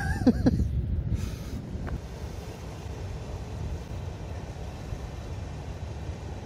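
Steady low wind rumble on the microphone.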